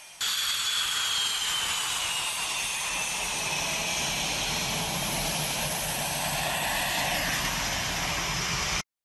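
Spanish Air Force EF-18 Hornet fighter's twin turbofan jet engines running loud: a steady roar with a high whine that slowly falls in pitch. It cuts in abruptly and cuts off just as abruptly near the end.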